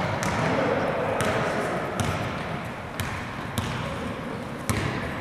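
Basketball bouncing on a gym floor: a handful of sharp bounces spaced about a second apart, over a steady background of crowd chatter.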